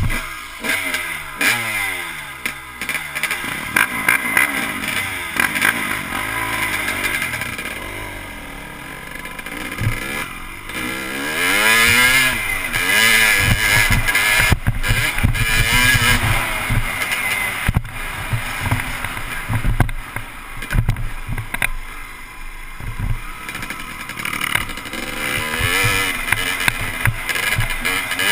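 Dirt bike engine under hard riding, its pitch climbing and dropping again and again as the throttle is opened and closed and the gears change.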